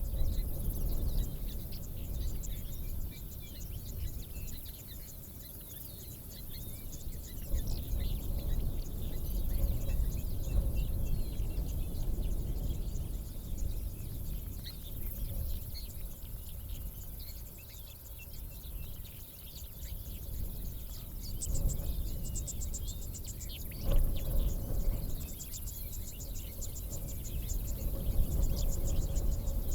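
Open-savanna ambience: birds chirping faintly over a steady low rumble, with rapid high trills in the second half and a dull thump about 24 seconds in.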